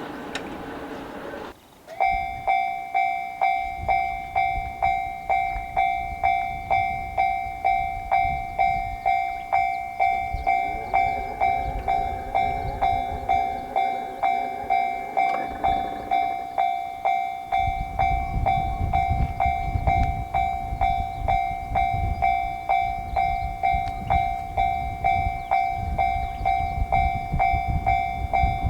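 Japanese level-crossing warning bell starts about two seconds in and rings steadily at about two strikes a second. An electric train runs over the crossing, its rumble and clickety-clack growing strong in the second half.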